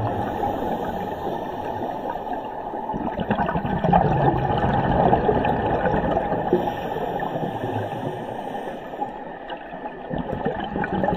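Scuba regulator exhaust bubbles gurgling and hissing underwater, coming in surges as the divers breathe out.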